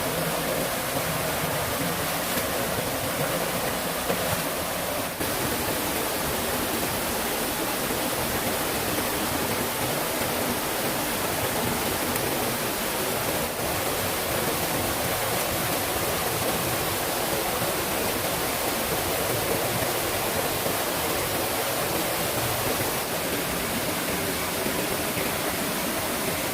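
Steady rush of flowing water from a forest stream, an even hiss with no distinct events.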